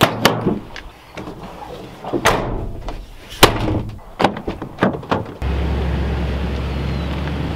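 Pickup truck tailgate and door being worked: latches click and clunk, with several sharp slams. About five seconds in, a steady low rumble takes over.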